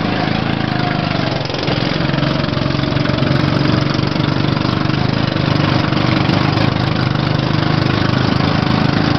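Small go-kart engines running with a steady drone, dipping briefly about one and a half seconds in.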